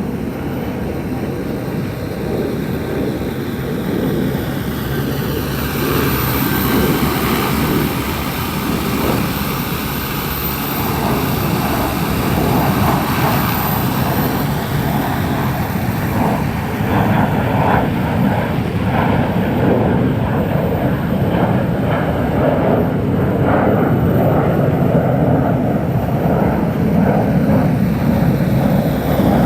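Multirotor agricultural spraying drone with a 15-litre tank, flying with its rotors droning steadily. Its motor pitch falls in the first few seconds and again near the end.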